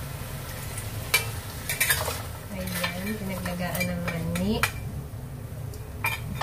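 Water poured from a steel pot into a large stainless-steel pan of pork feet, then a metal spatula stirring, with sharp scrapes and clinks against the pan's sides.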